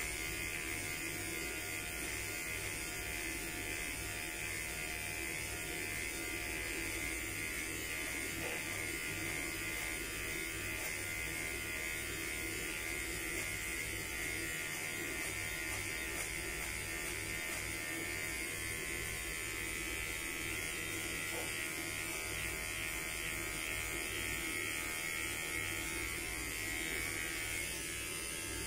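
Electric hair clippers running with a steady buzz, trimming hair at the sideburn and side of the head.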